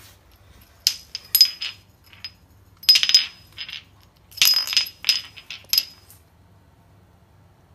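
Small metal bowl clinking against the floor as a hamster carries and bumps it along: several short clusters of sharp knocks with a bright ring after each.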